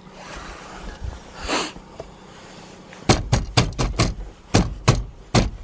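A quick, uneven run of sharp metallic clicks or knocks, about three a second, starting about three seconds in, from work on a car's steering wheel hub. A brief rustle comes just before them.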